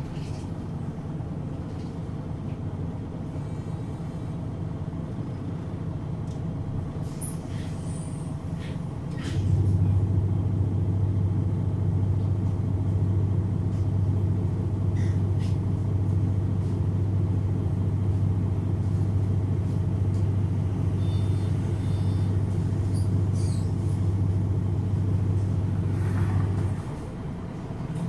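MAN NG313 articulated bus's horizontal six-cylinder MAN D2866 turbo diesel idling while the bus stands still. About nine seconds in, a loud steady low hum comes in on top of the idle and cuts off about a second before the end, with a few short air hisses.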